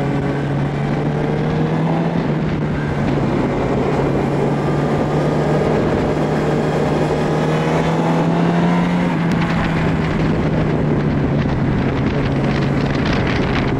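2004 Yamaha R1's 998 cc inline-four engine running under way at a fairly steady pitch, rising a little and dropping back about nine seconds in, with wind noise on the helmet microphone.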